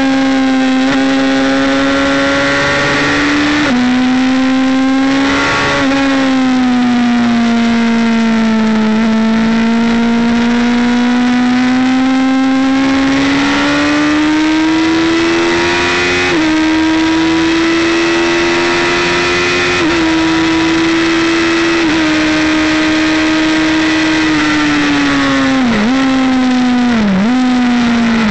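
Sport motorcycle engine running hard at high revs, heard from an onboard camera with wind rush over it; the pitch sags and climbs slowly as the bike works through corners and upshifts, and dips sharply three times near the end.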